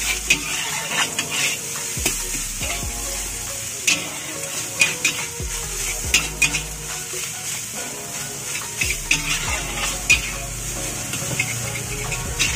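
Metal spatula scraping and clanking irregularly against a large iron wok as fried rice is tossed, over a steady sizzle of the frying.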